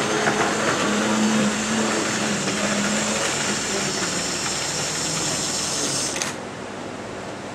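Wrenn OO-gauge tank locomotive running on a model railway, its electric motor and gears whirring steadily with the wheels rattling on the track. The sound drops suddenly about six seconds in.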